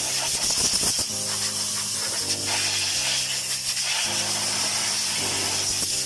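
Compressed-air blow gun hissing steadily as it blows dirt off the water pump mounting surface on a 4D32 diesel engine. Background music plays under it, its notes changing about once a second.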